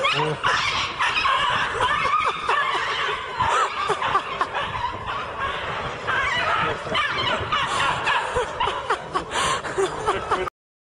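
Several people laughing and giggling, with many short overlapping laughs, which stop abruptly near the end.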